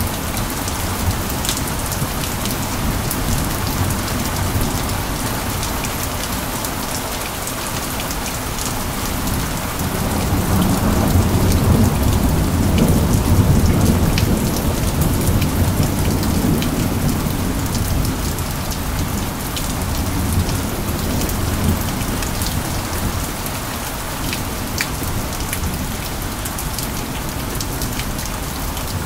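Steady rain with many small drop ticks. About ten seconds in, a low rumble of thunder swells, is loudest for a few seconds, then fades back into the rain.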